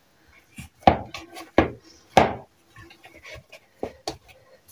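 Hands kneading soft, slightly sticky bread dough in a plastic bowl: irregular dull thumps and squelching rubs as the dough is pressed and folded, a few each second.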